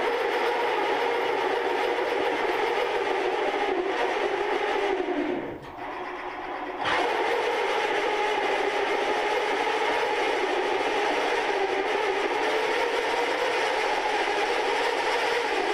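Large twist drill in a milling machine's angle head cutting into the steel end of a truck tie rod: a loud, steady, noisy cutting sound with a droning pitch. It is noisy because the drill has not yet got a bite. About five seconds in, the pitch sags and the sound drops away, picking back up about two seconds later.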